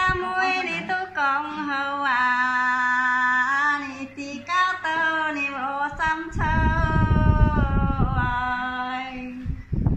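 A woman singing unaccompanied in the Dao language, a verse of a call-and-response folk song, in long held notes that waver in pitch. A low rumble sounds under her voice for a few seconds in the second half.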